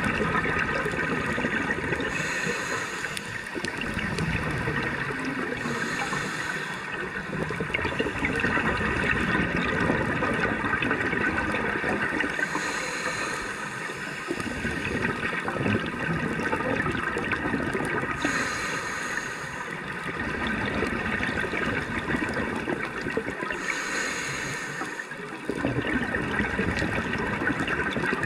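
Scuba diver breathing underwater through a regulator: a short inhaled hiss every five or six seconds, with the bubbling rush of exhaled air between.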